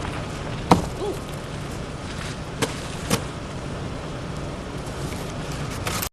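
Steady background noise with three sharp knocks, one under a second in and two more about two and a half and three seconds in; the sound cuts off abruptly at the end.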